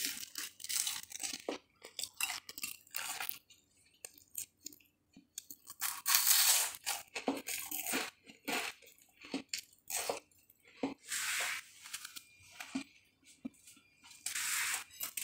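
Crispy food being crunched and chewed close to the microphone, in irregular crunches with short pauses between.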